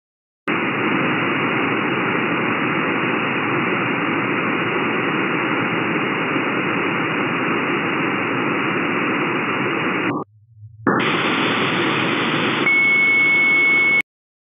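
Shortwave receiver hiss from the 20-metre band, played back from an SDR recording: a steady rush of band noise that drops out for about half a second just after ten seconds in, when the receiver is retuned, then returns a little brighter. A steady high whistle joins it for the last second and a half, and everything stops abruptly.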